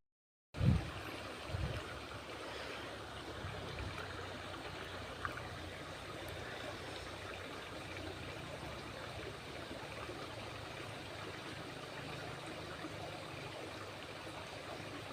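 Steady rush of flowing water, with a couple of low knocks in the first two seconds.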